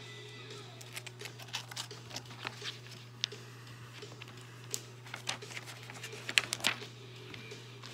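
Pages of a comic book being turned and handled: irregular paper rustles and crackles, the loudest cluster about six and a half seconds in, over a steady low hum.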